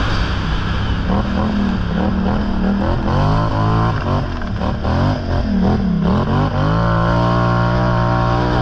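Vehicle engine revving up and down again and again, then holding a steady pitch from about seven seconds in.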